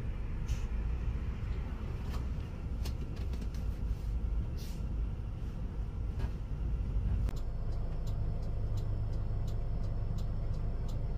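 Low, steady rumble of a premium express coach heard from inside the passenger cabin, with scattered light clicks and rattles.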